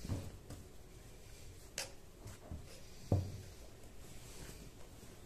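Modal suit fabric being unfolded and spread out on a wooden table: soft rustling of the cloth with a few dull thumps of hands and cloth on the tabletop, the loudest about three seconds in, and a sharp click a little before two seconds.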